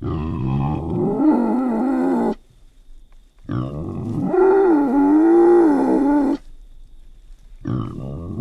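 Wild boar calling: three long, pitched calls of about two to three seconds each, with short pauses between them. The last starts near the end and is cut off.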